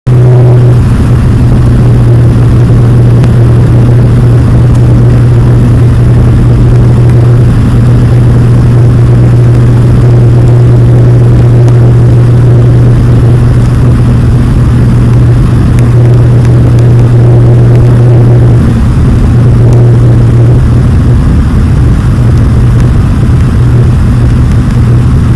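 Fokker 50 turboprop's propellers and engines running steadily and loudly, with a strong low propeller drone over a rushing noise.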